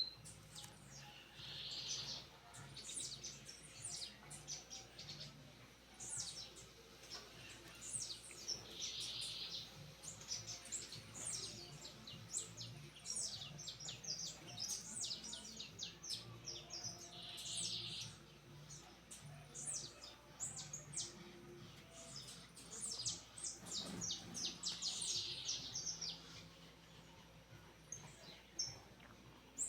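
Birdsong: a dense run of quick, high chirping notes, broken about every seven to eight seconds by a fuller, buzzy phrase.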